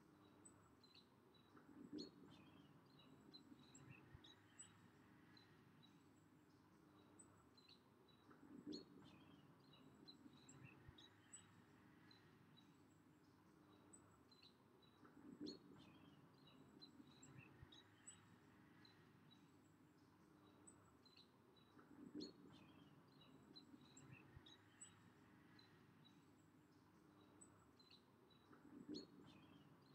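Very quiet outdoor ambience: faint small birds chirping, with a low, short call repeating at an even pace about every seven seconds.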